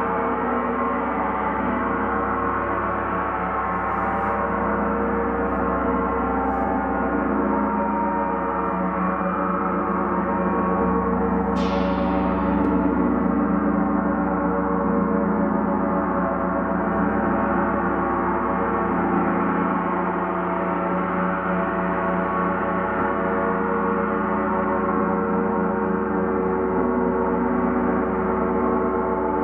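Large gong ringing continuously in a dense, steady wash of overlapping tones, with one fresh strike about twelve seconds in.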